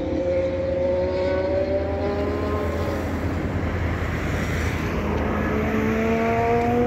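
Ferrari SF-21 Formula One car's 1.6-litre turbocharged V6 running on the circuit, its engine note climbing as it accelerates. The note fades in the middle, then climbs again from about five seconds in.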